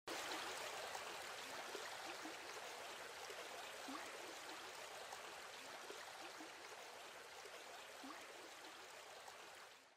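Steady rush of flowing water, like a stream, with a few faint gurgles, fading out near the end.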